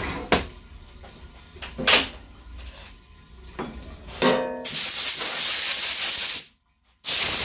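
A few light clicks, then a loud, steady hiss for about two seconds that cuts off suddenly, and a second short burst of the same hiss near the end.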